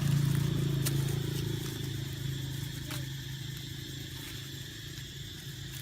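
A low, steady engine hum that fades away over a few seconds, with a few faint clicks.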